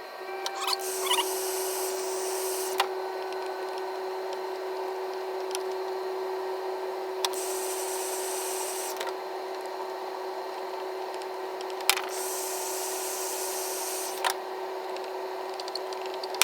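Heat gun running with a steady hum, its tone unchanging throughout, while the plastic fender flare is being reworked. Three hissing bursts of a second or two and a few sharp clicks sound over it.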